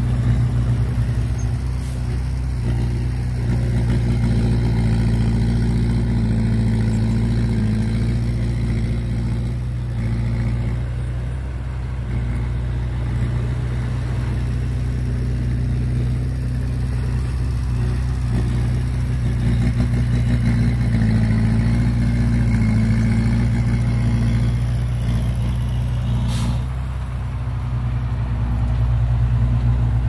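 Heavy diesel engine of earthmoving machinery running steadily at a low, even rumble, swelling slightly now and then.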